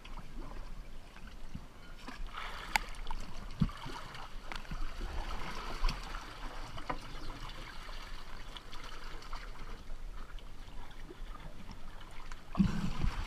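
Seawater sloshing and gurgling against a boat's stern and a camera held at the waterline, with a few sharp knocks and a louder thump near the end.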